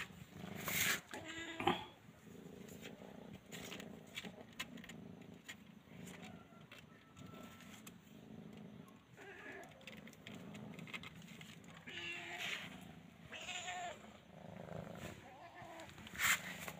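Cat mews: short high cries, several about a second in, more about twelve seconds in, and one near the end, with faint clicks and rustling in between.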